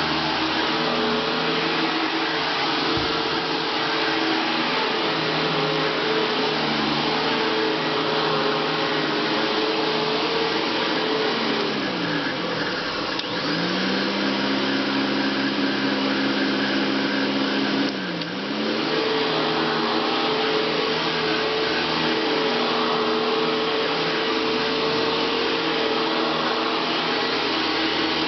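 1966 Sears Kenmore Duo Power upright vacuum cleaner running with a steady whooshing hiss and a motor whine. About twelve seconds in, the whine drops to a lower pitch and holds there for about six seconds, then climbs back to its earlier pitch.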